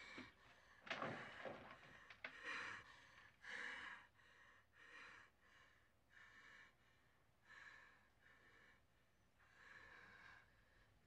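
A terrified woman panting and gasping, short hissing breaths about once a second that grow fainter. A few louder, sudden sounds come in the first two seconds.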